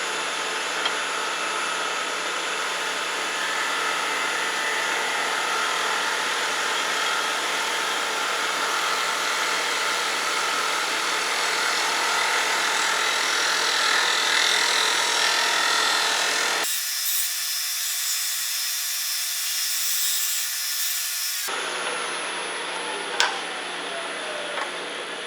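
Wood lathe spinning a sweet gum blank while a turning tool shear-cuts it: a steady hiss of the cutting edge on the wood over the lathe's hum. Near the end the hiss gives way to a tone falling steadily in pitch, with a single click.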